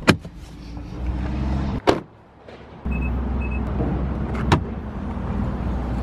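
Car door latch clicking open and the door shutting with a thud, then two short high beeps and a sharp click as the trunk lid is released, over a steady low rumble.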